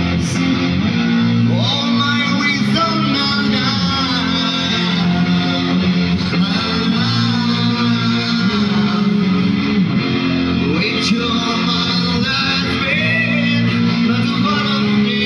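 Rock music played by a band: electric guitar over bass guitar, loud and continuous.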